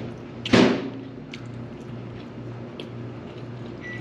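Two people eating at a table with chopsticks: a brief loud sound about half a second in, then a few faint clicks over a steady low hum.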